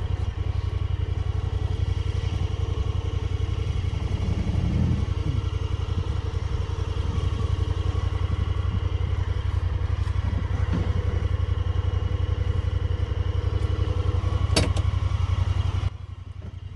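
Side-by-side UTV engine idling steadily, with a single sharp knock about fourteen and a half seconds in; the engine sound drops away abruptly about a second before the end.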